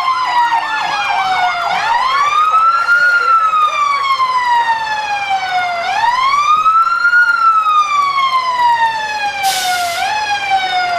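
Emergency vehicle siren: a fast warbling yelp for about the first two seconds, then switching to a slow wail that rises and falls twice. A short hiss sounds near the end.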